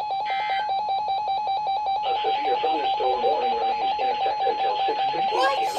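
Steady, rapidly pulsing electronic tone from the emergency alert broadcast. Just after the start comes a brief buzzy data burst, the alert's end-of-message signal. From about two seconds in, a warbling sound joins the tone.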